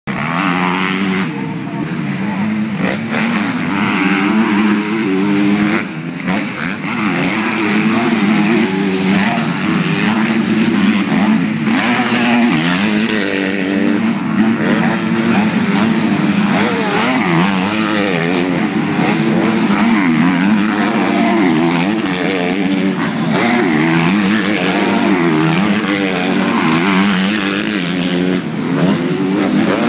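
Several motocross bikes racing on the circuit, their engines revving up and down and overlapping, the pitch rising and falling continually as riders accelerate, shift and pass.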